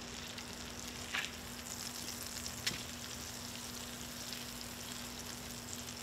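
Blackened hogfish fillets frying in oil and butter in a pan: a steady crackling sizzle, with a couple of light clicks about a second in and near three seconds.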